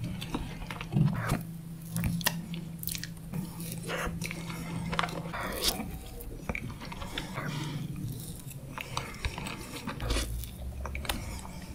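Close-miked eating sounds of soft chocolate fondant taken from a wooden spoon: wet chewing, lip smacks and sharp mouth clicks, with a low steady hum through the first half.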